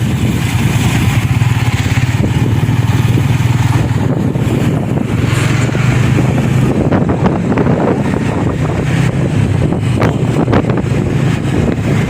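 A road vehicle's engine running steadily while on the move, a constant low hum under wind and road noise buffeting the microphone.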